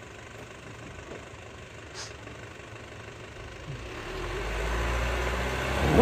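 An off-road vehicle's engine running, a low rumble that grows steadily louder from about four seconds in.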